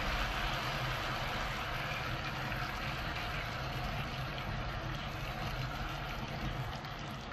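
Beaten egg sizzling and crackling in a hot frying pan as it is poured over fried vegetables, a steady hiss, with a steady low hum underneath.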